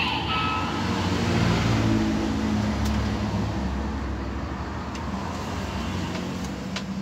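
Electronic sound effect played through the speaker of a DX Valvarusher toy loaded with the Steamliner Chemy card: a low, steady, engine-like rumble that slowly fades. A few small clicks come from the plastic toy being handled and set down.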